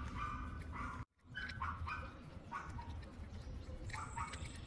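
A string of short, high squeaks from a tiny screw being turned with a hex key into the stoplight, several in quick succession and then a few more near the end.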